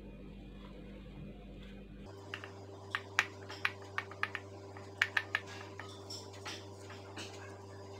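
A dozen or so short, sharp taps and clicks of fingers pressing a crumbly sweet filling into the cavities of a silicone mould on a countertop, starting about two seconds in, over a low steady hum.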